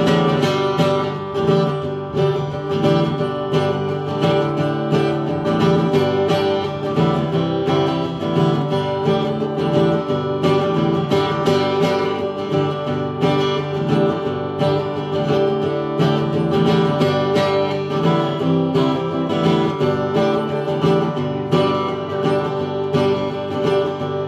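Acoustic guitar strummed steadily in a country style, an instrumental break between verses of a live solo song.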